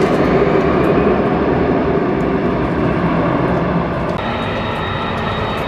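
Kawasaki C-2's twin turbofan jet engines running at takeoff power, a loud steady jet noise. About four seconds in, the sound changes abruptly to a different jet running with a thin steady high whine.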